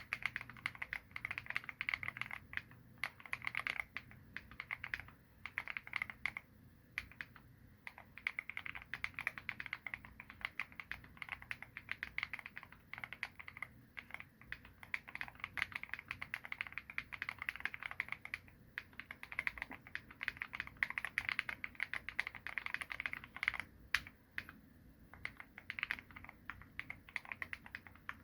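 Keychron Q1 mechanical keyboard being typed on in quick bursts with short pauses: Feker Panda switches on a polycarbonate plate with Kat Katha keycaps and Gateron stabilisers, dampened with fatmat and the force-break and tempest mods. One sharper, louder keystroke stands out late on.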